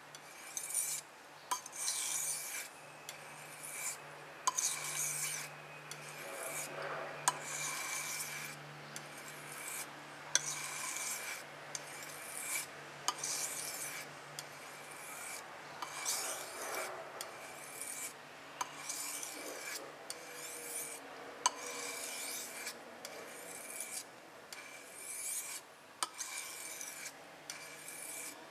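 Stainless steel kitchen knife blade drawn along a whetstone in steady strokes, about one a second, each a short scraping hiss: the edge being ground on the finer stone, working the second side to take off the burr raised on the first.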